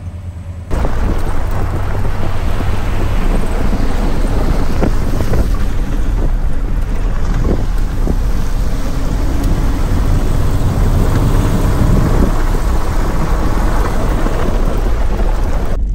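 Loud, steady rumble and hiss of wind and road noise buffeting the microphone as an off-road truck drives along a muddy trail. It starts abruptly under a second in and cuts off suddenly near the end.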